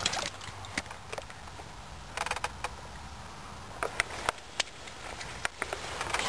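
Irregular light knocks and clicks, with a short cluster about two seconds in and several more after four seconds, over a faint steady low hum.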